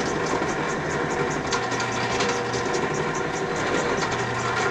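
Drill press motor running steadily, with a countersink being fed a little deeper into the touch hole of a flintlock barrel; a faint fast ticking rides over the hum.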